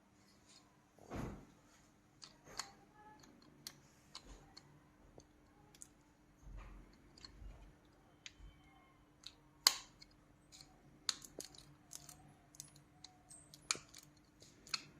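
Irregular small clicks and taps from a mobile phone and small repair tools being handled on a bench, with a soft thump about a second in and the sharpest click near the middle.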